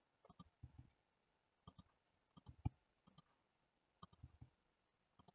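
Faint clicking of a computer mouse and keyboard keys, in small clusters of two or three clicks about every second, as mesh vertices are picked and moved in Blender.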